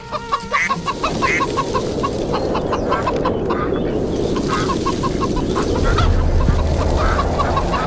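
Chickens clucking in a steady run of short clucks, about three a second, with a few longer calls, over a loud steady rushing noise that gains a deeper rumble about six seconds in.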